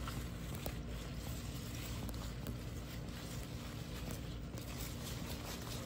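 Sweet potato leaves and vines rustling as a gloved hand pushes through the dense foliage, with faint scattered crackles over a steady low hum.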